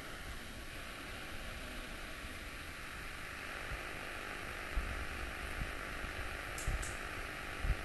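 A steady rushing hiss, with a few soft low thumps and a couple of faint clicks near the end.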